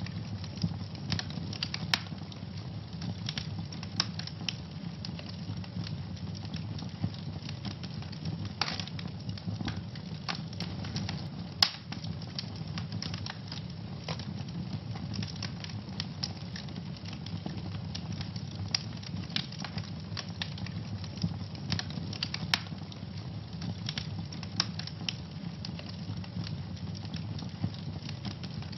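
Wood fire in a fireplace burning, with frequent irregular crackles and pops over a steady low rumble; one sharper pop a little before halfway.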